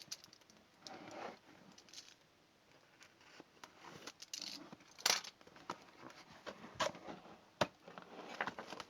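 Unboxing by hand: cardboard and packaging rustling, with scattered sharp clicks and knocks as small plastic parts and hardware are taken out. The loudest clicks come about five, seven and seven and a half seconds in.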